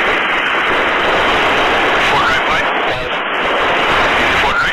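Steady rushing noise of an MH-65 Dolphin helicopter hovering, heard through the aircrew's intercom.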